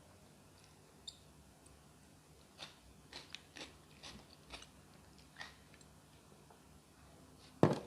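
Close-up eating sounds: a run of short, separate chewing and crunching smacks as chicken, rice and puri are eaten, with one much louder knock near the end.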